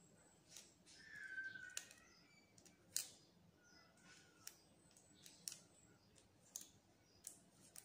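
Faint, scattered light clicks and taps of hands handling a smartphone and working on its screen, with a few faint squeaks.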